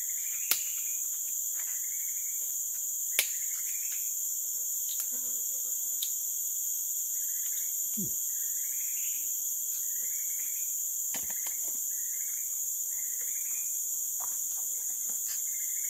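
Steady high-pitched drone of forest insects, with short chirping calls recurring about once a second and two sharp clicks, one about half a second in and one about three seconds in.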